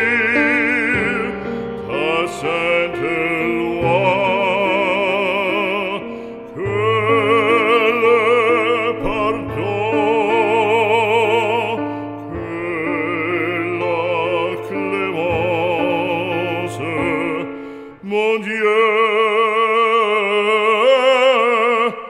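Background music: a French hymn sung in operatic style, long held notes with wide vibrato over orchestral accompaniment.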